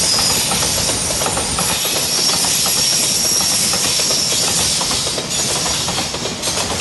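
Freight train's container flat wagons rolling past at speed: a loud, steady rumble and hiss of steel wheels on rail, with repeated clacks as the wheels cross rail joints.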